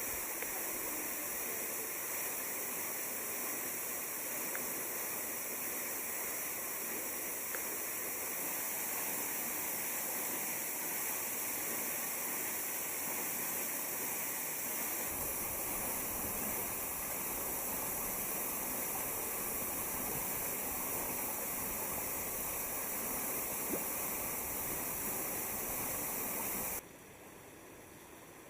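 Waterfall: a steady rush of falling water, with more low rumble from about halfway through. It drops abruptly to a much fainter hiss near the end.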